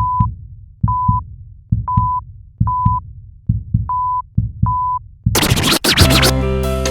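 Electronic intro sound effect: six short, steady beeps at about one a second, each paired with low thumps like a heartbeat. After the fifth second a short burst of noise cuts in and music begins.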